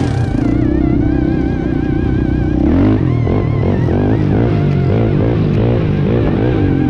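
Background music with a stepping bass line and wavering held high tones, over ATV engines running.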